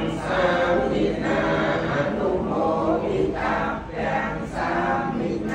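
Buddhist worshippers chanting prayers in unison, a many-voiced recitation in a steady rhythm of about two syllables a second.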